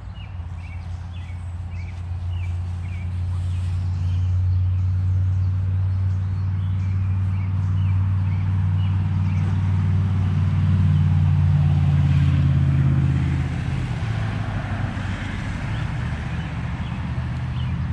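A motor vehicle's engine running close by: a low, steady rumble that grows louder toward the middle and eases off about 13 seconds in.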